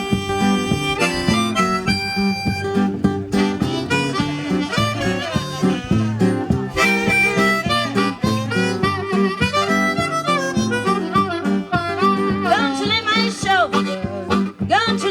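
Instrumental background music: a harmonica playing a melody over guitar accompaniment, with bending, gliding notes near the end.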